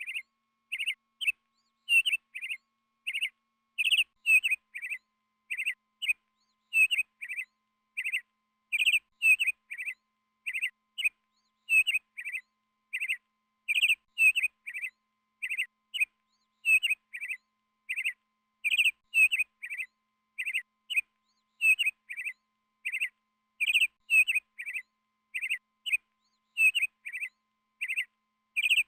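A bird chirping: short, clear notes repeated steadily about twice a second, often in pairs, with clean silence between them.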